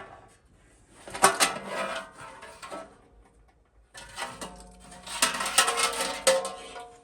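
Metal oscilloscope chassis being pushed out of its case, clattering and scraping in two bursts, about a second in and again from about four seconds on, the second with a short metallic ring.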